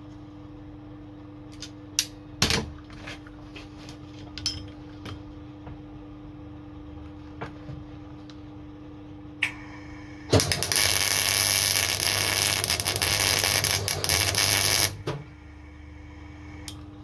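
Electric arc welder crackling for about four and a half seconds, starting about ten seconds in, as a nut is welded onto the stub of a broken screw in a wheel hub to draw it out. Before the weld there is a steady hum with a few metal clicks and knocks.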